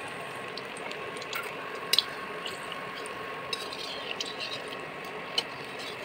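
Batter-coated tomato halves deep-frying in hot oil in an iron kadhai: a steady sizzle with scattered pops and crackles, and a few sharp clicks.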